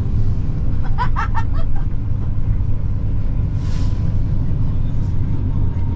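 Steady low rumble of a moving coach's engine and tyres, heard inside the passenger cabin. There is a short burst of voice-like sound about a second in and a brief hiss a little past halfway.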